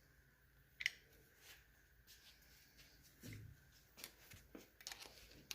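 Faint scattered clicks and taps of metal hand tools working on the engine, with one sharp click about a second in, a dull knock a little after three seconds, and a run of quick light clicks near the end.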